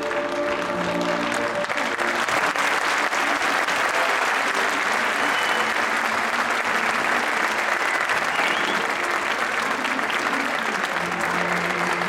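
Crowd applauding steadily in a hall, with instrumental music playing underneath; the clapping swells about two seconds in.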